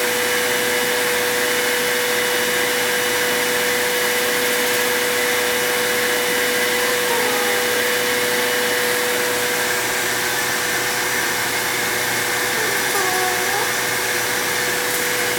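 Vacuum cleaner running steadily: a constant rush of air with a steady motor whine.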